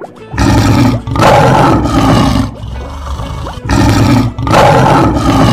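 Animal roar sound effects: four loud, rough roars in two pairs, each pair a short roar then a longer one, over quiet plucked harp music.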